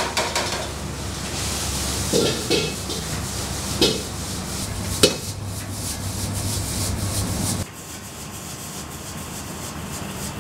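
A steel ladle scraping and stirring fried rice in a wok as it is tossed over a gas burner, with several sharp knocks of ladle on wok in the first half. A steady rush of burner and kitchen noise sits underneath and drops suddenly about three-quarters of the way through.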